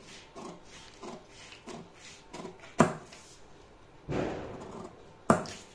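Scissors cutting out a pattern piece: a run of short snips, about two a second, then a couple of sharper clicks and a brief louder rasp.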